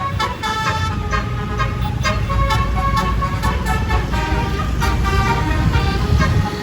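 Bus telolet horn (Basuri multi-tone air horn) playing a quick melody of changing notes, over the low rumble of the bus's engine.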